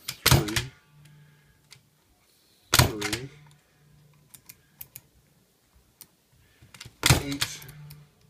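Manual key punch cutting machine punching cuts into a key blank: three loud mechanical strokes of the handle, at the start, near 3 s and near 7 s, each lasting about half a second, with light clicks between as the machine is set for the next cut.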